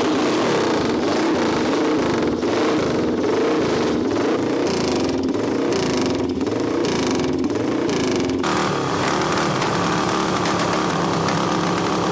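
Classic racing motorcycle engine running on a paddock stand, the revs rising and falling as it is blipped. About two-thirds of the way through, the sound changes to a steadier running note with a high steady whine.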